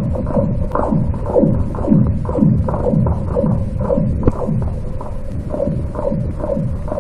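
Pegs being hammered into lake ice by many anglers, heard underwater below thin early-season ice: a continuous run of falling-pitch 'pew' chirps, about two a second and overlapping, over a low hum. The angler holds this noise to be the main reason fish bite poorly on crowded opening days and holidays.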